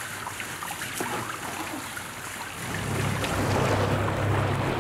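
Wind and rushing, splashing sea water. About two and a half seconds in, the steady low hum of a fishing boat's Mercury outboard motors comes in and the sound grows louder.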